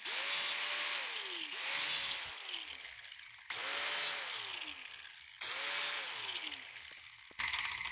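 Angle grinder with a cutoff wheel cutting through a steel coil spring in several short runs. Each run spins up, holds, and then winds down as the trigger is let go, with a hissing grind of the wheel on the spring wire.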